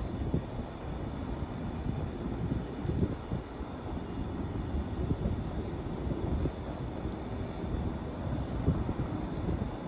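Low, uneven rumbling of wind on the microphone and tyre noise from an InMotion E20 electric unicycle riding along a paved path, with a faint steady high whine.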